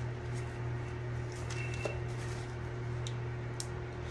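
Steady low hum with a few faint clicks and scrapes of a box cutter slicing the tape on a small cardboard box.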